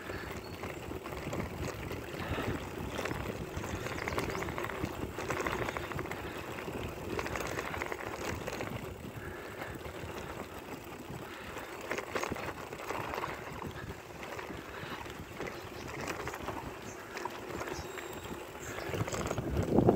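Bicycle tyres crunching steadily over hard-packed gravel, with many small clicks and rattles from the loaded bike. Wind on the microphone picks up right at the end.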